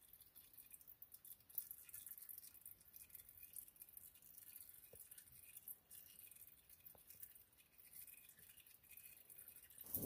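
Near silence, with a faint trickle and patter of used engine oil draining from the Kubota M6040 into a plastic bucket, and a couple of faint clicks.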